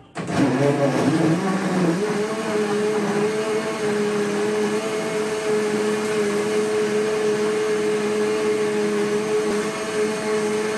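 Countertop blender switched on, blending fruit pulp into juice. The motor comes up to speed with a rising pitch over the first couple of seconds, then runs with a loud, steady whine.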